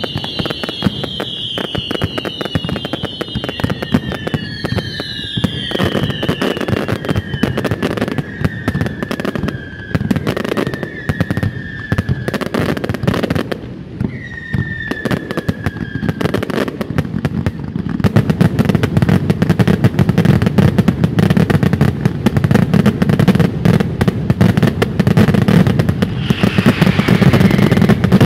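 Fireworks display: rapid bangs and crackling, with several whistles gliding down in pitch through the first half. About two-thirds of the way in it builds to a denser, louder barrage.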